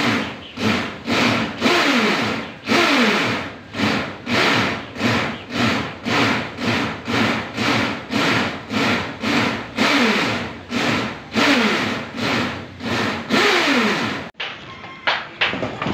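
Hand sawing with steady back-and-forth strokes, about two a second, each stroke carrying a falling ring; the sawing stops about fourteen seconds in.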